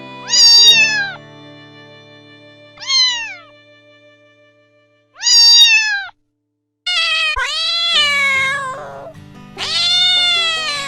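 Domestic cat meowing about five times: three short meows a couple of seconds apart, then two longer, drawn-out ones, each falling in pitch at its end. Background music plays underneath.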